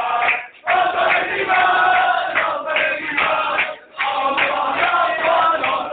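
Male voices singing together in long held phrases, breaking briefly about half a second in and again near four seconds.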